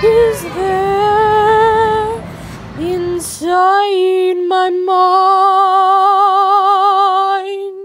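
A woman singing unaccompanied. About three and a half seconds in, the background noise drops away and she holds one long note with vibrato until it cuts off at the end.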